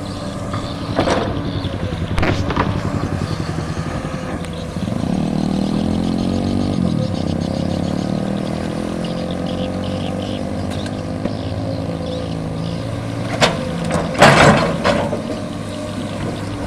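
Excavator diesel engine running, working harder about five seconds in, with sharp metallic knocks near the start and a loud cluster of clanks near the end.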